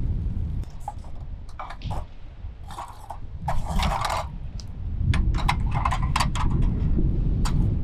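Low rumble with a series of short clicks and a brief scrape about halfway through, like gear being handled at close range.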